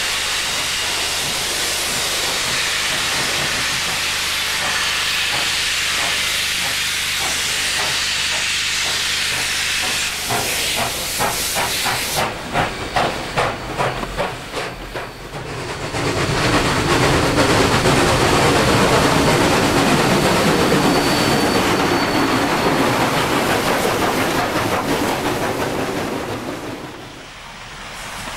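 Double-headed steam locomotives 2705 and 3642 hissing heavily as steam blows out around the cylinders, then starting away with exhaust beats about two a second from around ten seconds in. This gives way to a louder rush of steam and exhaust as they pass close, which falls away near the end.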